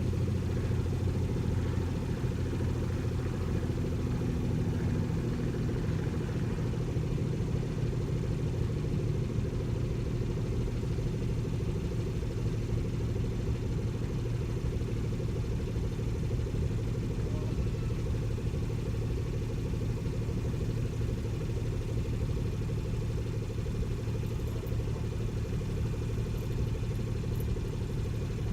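BMW 440i's turbocharged straight-six running steadily through its stock exhaust, an even drone with no distinct pops or crackles standing out.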